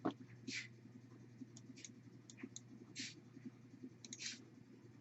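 Faint clicks from a computer mouse, a few of them stretched into short scratchy rustles, over a steady low electrical hum.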